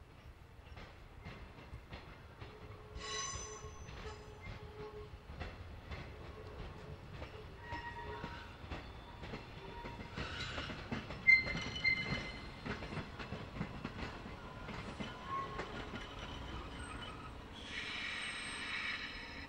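103 series electric train cars, hauled dead by a diesel locomotive, rolling slowly over yard trackwork. The wheels click steadily over rail joints and points and squeal on and off in high, ringing tones. The loudest moment is a short sharp squeal about eleven seconds in, and there is more squealing near the end as the cars pass close.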